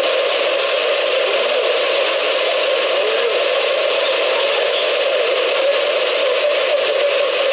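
Steady, even rushing noise with no breaks or changes, and a faint high steady whine above it.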